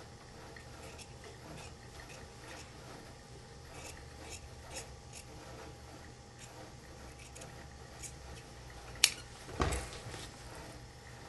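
Large tailor's shears cutting through shirt fabric in a run of faint snips. About nine seconds in, the shears are set down on the table with a sharp clack, followed by a duller thump.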